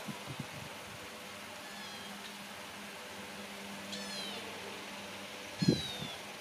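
A young kitten meowing three times: thin, high-pitched cries that fall in pitch, about two, four and nearly six seconds in. A short thump comes with the last meow, over a steady low hum.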